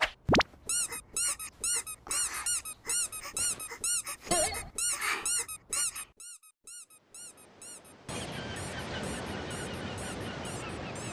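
A quick run of short, high, squeaky chirps, a cartoon sound effect, several a second and thinning out about six seconds in. From about eight seconds a steady hiss follows, like surf.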